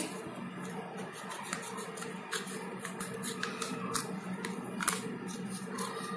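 Scissors snipping through a sheet of printer paper along a dotted line, a string of irregular crisp cuts.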